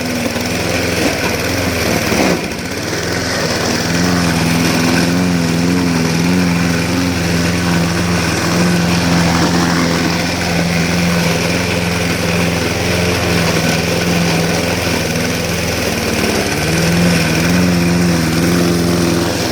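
Lawn mower engine running under heavy load while cutting thick grass at its lowest deck height. Its pitch wavers and sags as it bogs in the grass, dipping sharply about two seconds in and again near the end.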